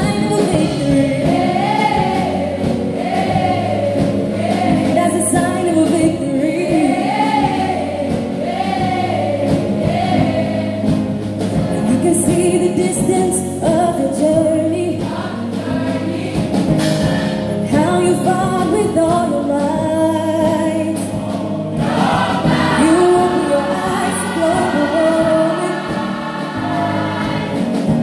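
Mass choir of school students singing a gospel song in parts, with sustained low keyboard notes underneath.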